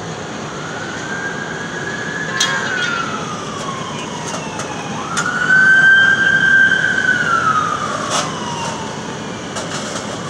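Emergency vehicle siren in a slow wail, rising, holding high and falling in long sweeps, with a sudden climb back up about halfway through and another rise near the end, over steady road noise.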